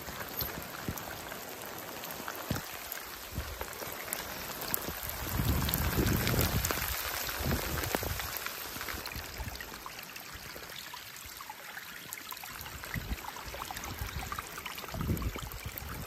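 Muddy rainwater running along a shallow dug drainage channel, with raindrops pattering. A low rumble swells about five seconds in and again near the end.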